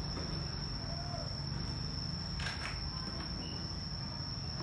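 A steady high-pitched whine over a low hum, with a faint click about two and a half seconds in as the laptop's LCD panel is handled.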